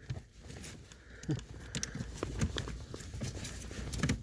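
Scattered light clicks and taps of car interior parts being handled and fitted, irregular, over a low background rumble.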